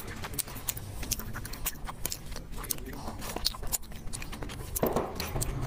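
Close-miked chewing of a piece of braised meat: wet mouth clicks and smacks, with a louder, fuller wet smacking sound from about five seconds in.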